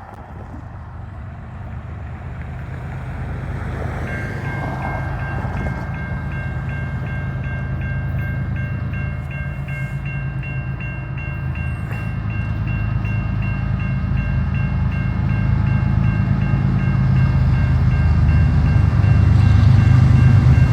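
CN freight train's diesel locomotive rumbling as it approaches, growing steadily louder. A rapid high ringing starts about four seconds in and keeps going.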